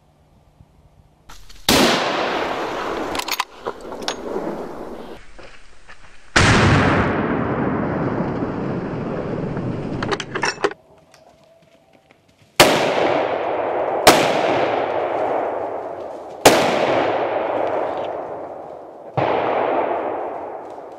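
A series of about six gunshots, each followed by a long echo that fades over a few seconds; some echoes are cut off abruptly, and the last three shots come close together, about two seconds apart.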